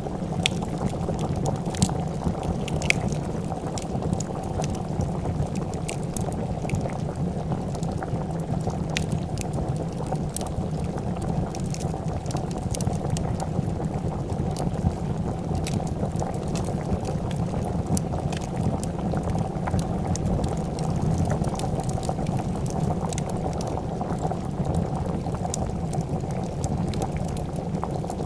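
A pot of soup boiling, its bubbling steady and dense throughout, with frequent small crackles and pops from a wood fire scattered over it.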